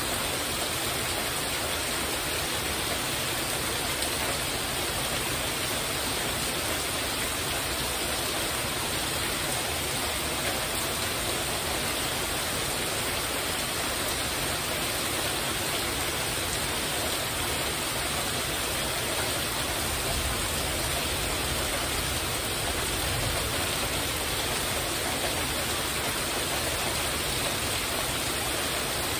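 Heavy rain falling steadily on a porch roof, an even, unbroken rush.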